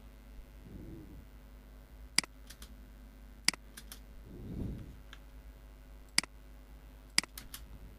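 Computer keyboard and mouse clicking sparsely: about four sharp single clicks at irregular spacing, with fainter ones between. Under them is a low steady hum, with two soft low sounds, one early and one around the middle.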